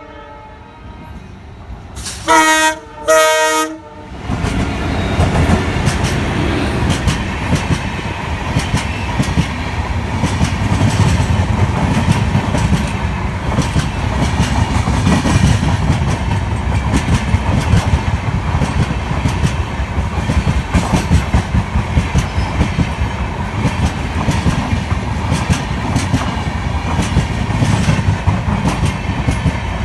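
An Indian Railways locomotive horn sounds two short blasts about two and three seconds in. Then the train passes at speed, its wheels clattering rhythmically over the rail joints for the rest of the time.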